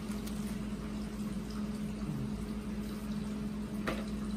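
Steady low hum and hiss of room noise, with one sharp click near the end as packaging or accessories are handled.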